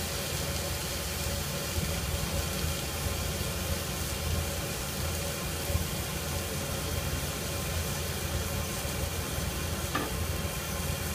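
Strip steak searing in a hot oiled pan over a gas burner: a steady sizzle over a constant low rumble. A light knock sounds about ten seconds in.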